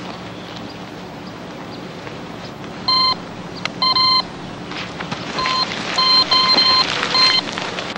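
Electronic beeps in a single steady pitch: two short beeps about three and four seconds in, then a quicker string of about five beeps near the end, over a steady low hum.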